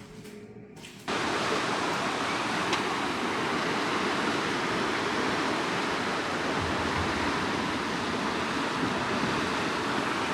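Steady rushing of water pouring into a canal lock chamber as it fills, with the water level rising quickly. It starts abruptly about a second in, after a short quiet stretch.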